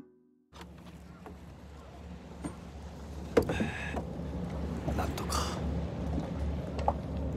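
Harbour sound: a low, steady throbbing hum of an idling engine, with a few sharp knocks and clatters about three and a half and five seconds in.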